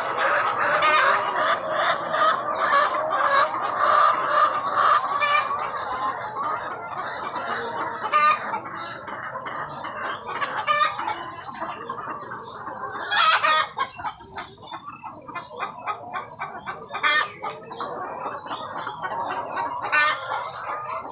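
A flock of chickens clucking continuously, with many short repeated calls. One louder call stands out a little after thirteen seconds in.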